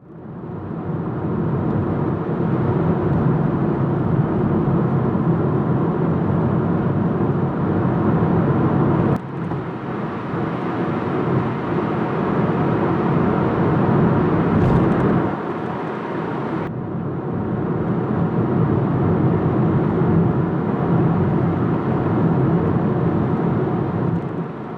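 Steady road and engine noise inside the cabin of a moving Kia Rio hatchback. There is a brief knock about nine seconds in, after which the noise is a little quieter.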